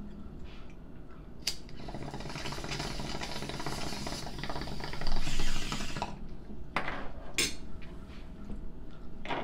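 Water bubbling and gurgling in a bong as it is drawn on for about four seconds, loudest near the end of the pull. It starts just after a sharp click, and a few short sharp sounds follow.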